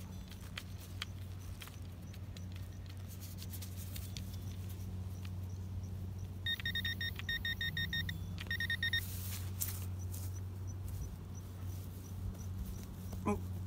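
Shovel digging into soil, with repeated sharp scrapes and knocks. A little past the middle, a metal detector gives rapid, high-pitched beeps for about two and a half seconds, signalling a metal target in the hole. A steady low hum runs underneath.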